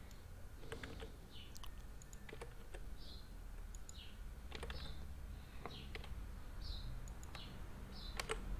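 Irregular clicks of a computer mouse and keyboard keys. Behind them a small bird chirps, one short high falling note about once a second.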